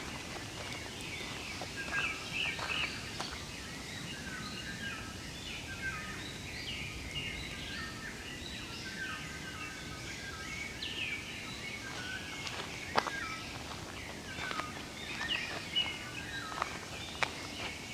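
Several wild songbirds chirping and calling at once, a busy mix of short high notes and trills, over a low outdoor hiss. A few sharp clicks stand out, the loudest about thirteen seconds in.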